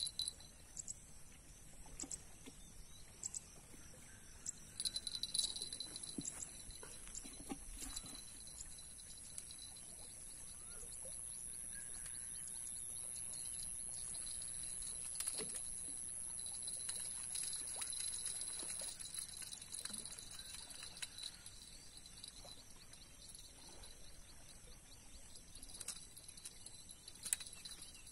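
Steady high-pitched chirring of an insect chorus, swelling in the middle and easing toward the end, with a few scattered clicks and knocks from handling gear.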